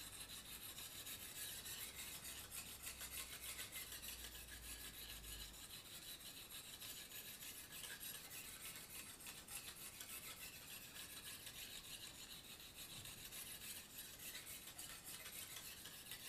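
Lansky guided knife sharpener's 600-grit oil stone rasping faintly along a kitchen knife's edge, stroked over the blade again and again.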